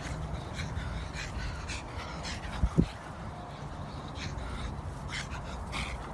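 Dogs chasing each other in play, with short high yaps scattered throughout over a low steady rumble. Two loud knocks come close together a little under three seconds in.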